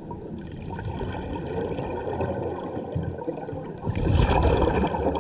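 A scuba diver's regulator breathing, heard underwater: exhaled air bubbles out of the regulator, loudest from about four seconds in, over a steady watery rumble.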